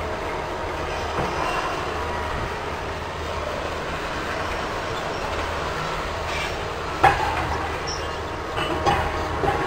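Bucyrus-Erie 2570W walking dragline at work: a steady rumble of its machinery as the boom swings the loaded bucket. Sharp clanks about seven seconds in and twice more near the end, as the bucket dumps its load of overburden.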